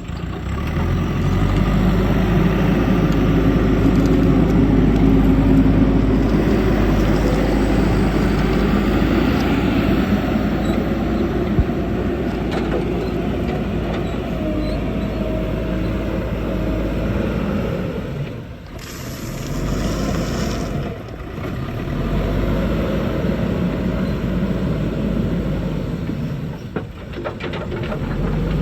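A backhoe loader's diesel engine running steadily under working load, with two short drops in level about two-thirds of the way through.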